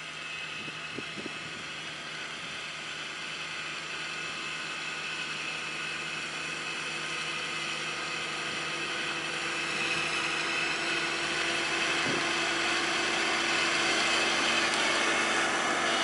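Kubota DC-35 combine harvester's diesel engine and machinery running steadily. The sound grows steadily louder as the machine drives closer.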